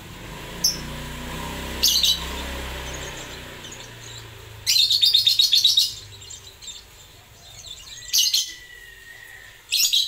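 Lovebird giving sharp, shrill chirps several times. The loudest call is a rapid chattering trill of about a second near the middle. A low rumble underlies the first three seconds.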